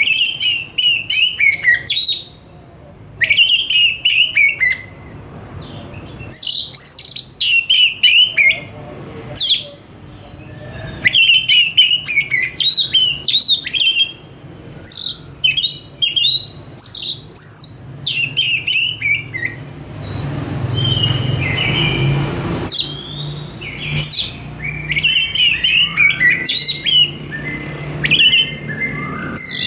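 Oriental magpie-robin singing loud, rapid bursts of varied whistled and chattering phrases with short pauses between them. A low hum and a rush of noise rise under the song about two-thirds of the way through.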